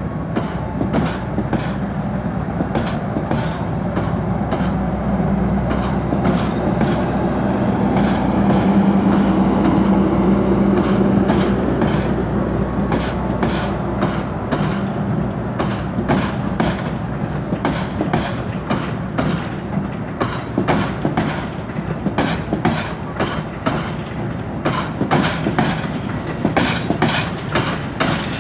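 Coaches of a long-distance passenger train rolling past on the adjacent track. The wheels clickety-clack evenly over the rail joints above a steady low hum.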